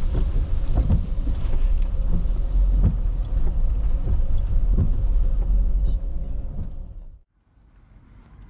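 Steady low rumble of engine and road noise inside a moving camper van, with a few scattered clicks, fading out about seven seconds in.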